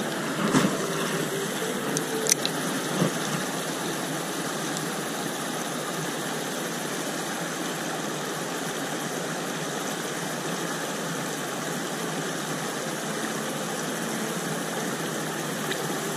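Shallow stream water rushing steadily over a rocky riffle, an even hiss. A few sharp clicks sound in the first three seconds.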